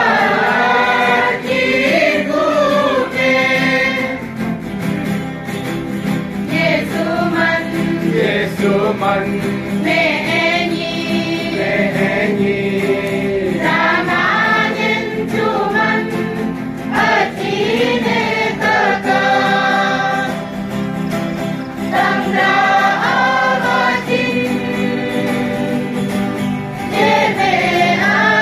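A group of voices singing together in chorus, with guitar accompaniment.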